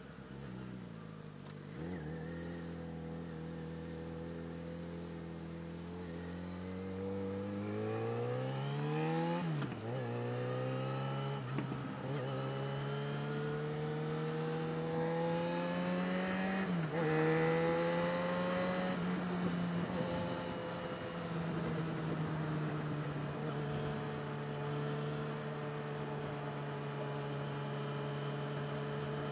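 Yamaha XJ6's 600 cc inline-four engine accelerating through the gears. The pitch climbs steadily and drops sharply at an upshift about nine and a half seconds in, climbs again and drops at another upshift about seventeen seconds in, then holds steady at a cruise.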